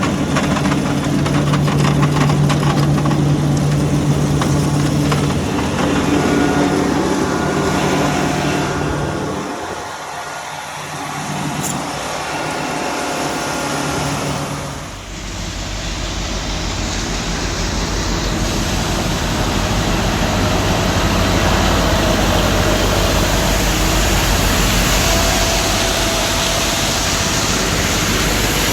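Tractor engine running steadily while grinding grain. It dips in level about ten seconds in, and then gives way to a steady rushing machine noise with a deep rumble.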